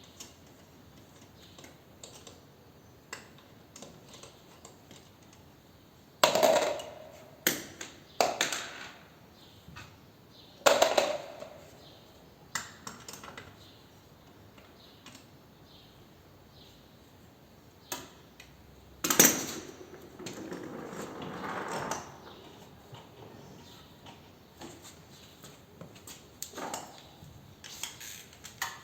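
Hand tools clanking on metal while the rear wheel bolts of a BMW K1200GT motorcycle are loosened: a handful of sharp, loud metallic knocks, some with a brief ring, and a rough rattling stretch of about two seconds some twenty seconds in.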